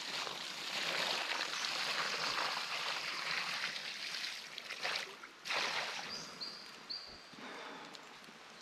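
Water being poured onto a campfire that is still hot underneath, a steady splashing hiss. It breaks off briefly about five seconds in, comes back, and then tapers away.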